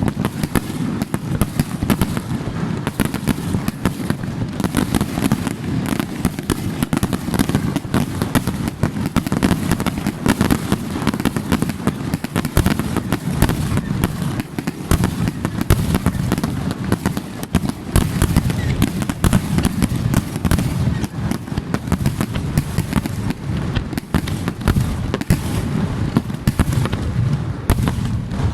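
Aerial fireworks going off in a rapid, unbroken barrage: many overlapping booms and crackling bursts with a heavy low-pitched undertone.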